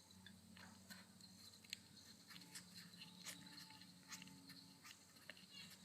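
Near silence: a faint low hum with scattered faint small clicks.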